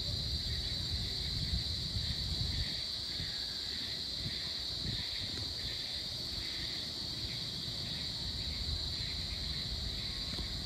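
Dusk insect chorus: a steady high-pitched drone of insects, with a lower pulsing call repeating a little more than once a second. A low rumble runs underneath.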